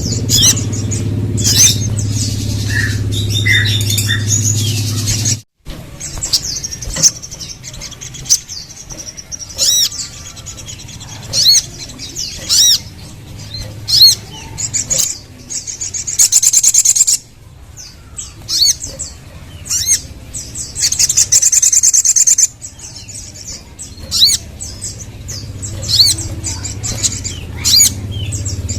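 Crimson sunbird (sogok ontong) calling: a rapid run of sharp, high chirps and trills with a few dense trilled bursts, over a steady low hum that drops out abruptly about five seconds in.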